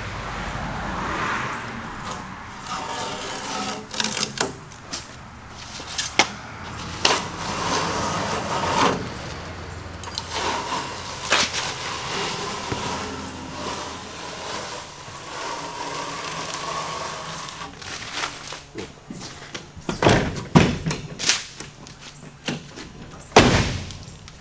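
Masking tape and masking paper being peeled off a freshly painted car body and crumpled: irregular tearing and crinkling, with a few sharp rips, the loudest near the end.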